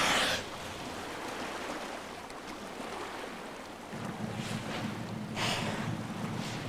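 Killer whales blowing at the surface: a short, loud whoosh of breath right at the start and another about five and a half seconds in, over the hiss of lapping sea water. A low steady hum comes in about four seconds in.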